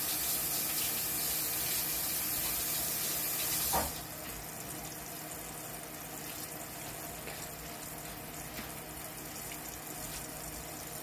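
Kitchen tap running while hands are washed, shutting off about four seconds in. After that, a quieter steady sizzle of pork chops frying in oil under a glass pan lid.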